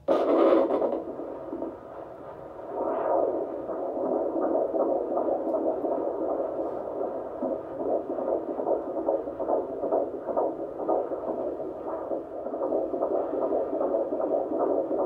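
Fetal heartbeat played by an obstetric Doppler ultrasound monitor: a fast, even pulsing of the unborn baby's heart, starting abruptly and running on steadily.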